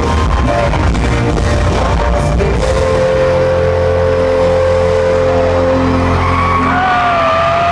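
A live country-rock band with electric and acoustic guitars, heard from within the crowd, plays the closing bars of a song. It settles into long held notes about two and a half seconds in, with a higher note bending near the end as the band drops away.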